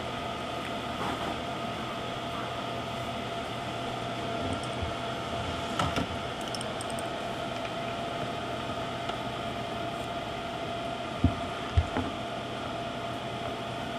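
Steady room noise: an even hiss with a faint high hum. A soft knock comes about six seconds in and two short knocks close together near the end, from the phone being handled.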